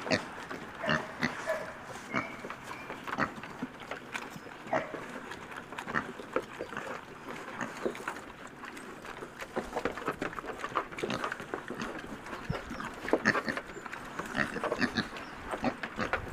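Small pigs eating together from a trough: a dense run of chewing, smacking and crunching clicks, busiest about two-thirds of the way through.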